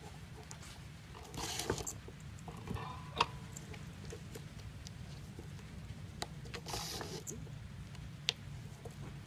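Red thread pulled through the cover of a baseball being hand-stitched, giving a short rasping hiss twice, with a few sharp ticks in between and a low steady hum underneath.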